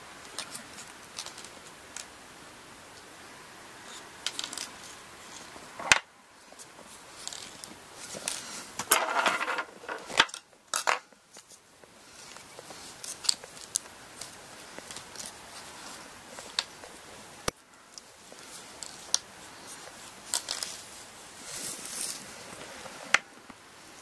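Close handling sounds of hand-sewing a zori's front toe thong with needle and thread: scattered light clicks, rustles and thread being drawn through, with a few sharper ticks.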